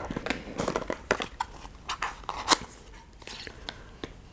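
Fingers prying open a cardboard advent calendar door and opening the small cardboard box inside: a scattered string of sharp clicks, taps and crackles of card.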